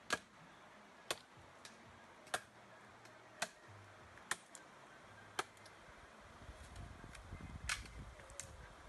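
A series of sharp, short clicks, about one a second, some louder than others. A low rumble comes in beneath them about six seconds in.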